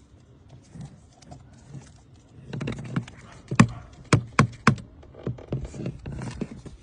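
Handling of a car's air-conditioning blower fan while debris and pebbles are cleared from it: a short stretch of rustling, then four sharp knocks or clicks within about a second, followed by lighter taps.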